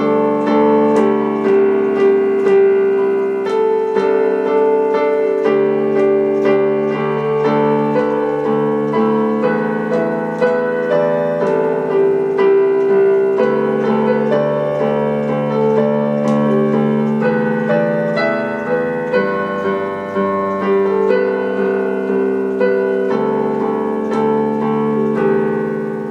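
Background music played on piano or electric keyboard, a steady run of notes at an even level.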